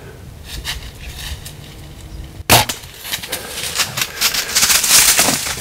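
A single sharp crack of a compound bow shot at a whitetail buck about two and a half seconds in. It is followed by loud crackling and crashing through dry leaves and brush as the hit deer bolts.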